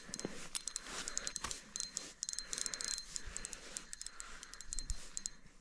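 Spinning reel being cranked to bring in a hooked fish, with a steady run of small irregular clicks and rattles from the reel and line handling.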